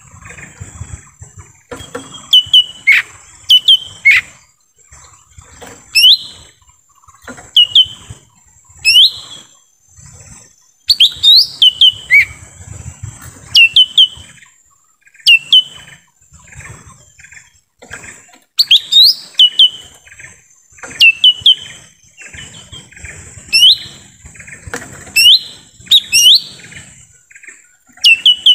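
Lesser green leafbird (cucak ijo mini) calling: loud, sharp, quick whistled notes that sweep and hook in pitch, given in clusters of two to four every second or two. A steady high hiss runs behind them.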